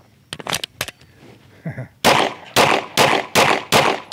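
A few light clicks of a pistol being handled, then a rapid string of about seven pistol shots roughly 0.4 s apart, starting about halfway in.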